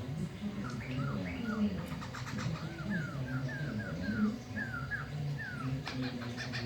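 Poksay mantel laughingthrush singing a run of short, clear, slurred whistled notes, roughly two a second, that break into a few harsh clicking notes near the end.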